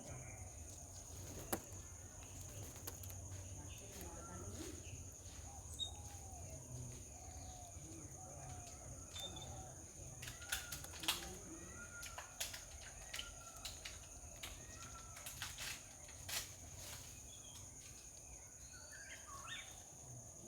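Faint outdoor garden ambience: a steady high-pitched insect drone, with scattered short bird calls and several sharp clicks.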